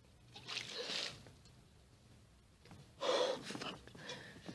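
A pot of ice water tipped over a woman's head, splashing about half a second in, then loud gasps from the cold about three seconds in.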